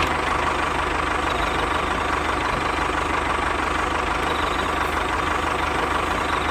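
A motor running steadily at an even, unchanging speed.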